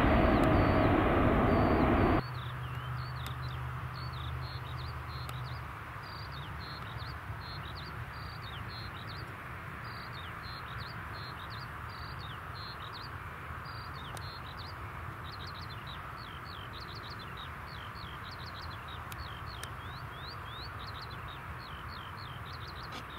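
Boeing 777 jet engines running at climb-out power for about two seconds, cut off abruptly. After that, small birds chirping repeatedly over a faint low rumble.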